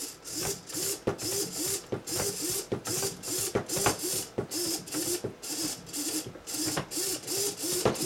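Small electric servo motor swinging rapidly back and forth as it follows a joystick being waggled. Its gears whir in a short buzz on each sweep, about three sweeps a second, with clicks at the reversals.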